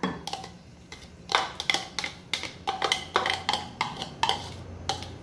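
Metal spoon scraping and tapping against a clear bowl, knocking minced garlic seasoning into a glass container: a dozen or so irregular clinks and scrapes.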